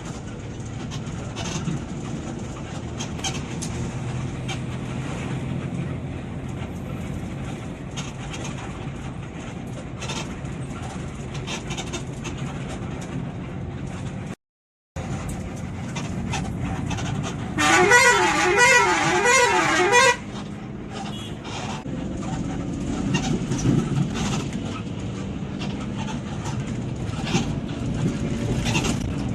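Traffic noise with a bus engine running, then, about eighteen seconds in, an Eka Cepat bus's telolet horn plays a warbling tune of alternating notes for about two and a half seconds, the loudest sound here. The sound drops out for half a second just before the horn.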